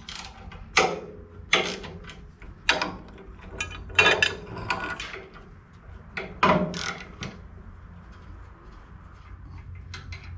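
Socket ratchet wrench clicking in short bursts while working a bolt on a cast-iron band saw table bracket, with knocks of the metal parts being handled. The bursts come about half a dozen times over the first seven seconds, then only faint handling sounds.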